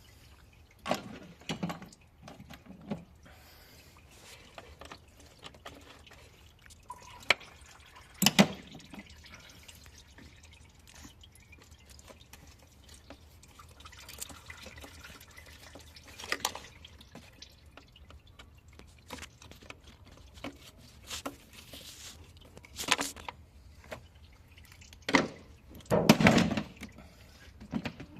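Liquid dripping, with scattered clicks and a few louder knocks and clatters, the loudest in a cluster near the end.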